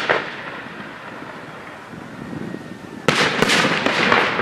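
Aerial firework shells exploding: one bang at the start, then about three seconds in a quick run of loud bangs and crackling.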